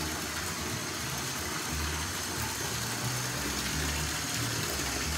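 Bathtub faucet running into a tub of water while trombone parts are rinsed under it: a steady rush of water with a low, uneven rumble beneath.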